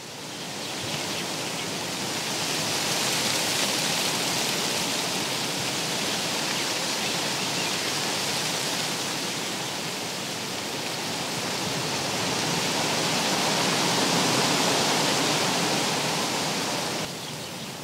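Steady rushing outdoor noise that swells and eases slowly, fading in at the start and dropping a little near the end.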